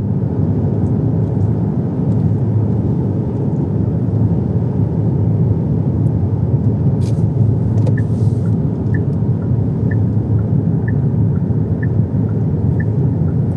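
Steady road and engine rumble inside a moving car. About eight seconds in, the turn signal starts ticking as a regular two-note tick-tock, about two clicks a second, while the car sets up to turn right.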